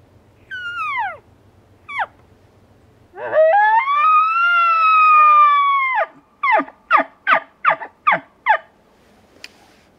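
Elk calls blown by a hunter: two short falling cow-elk mews, then a bull-elk bugle through a bugle tube, a whistle that rises and is held for about three seconds, followed by seven quick falling chuckles.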